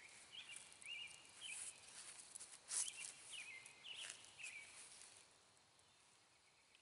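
Faint outdoor ambience: short high chirping calls from small animals, repeated about twice a second and fading out near the end. A few brief rustles or clicks come about three and four seconds in.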